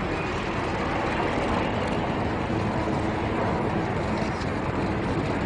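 Steady rushing engine noise, with a few faint steady tones running through it.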